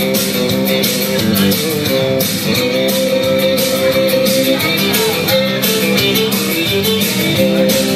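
Instrumental break of a country song: guitar playing the lead over a band backing with a steady beat, with no singing.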